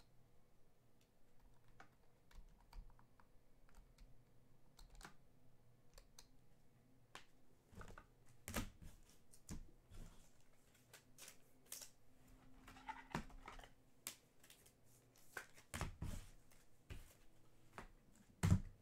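Faint, irregular light clicks and taps, sparse at first and coming thicker from about halfway through.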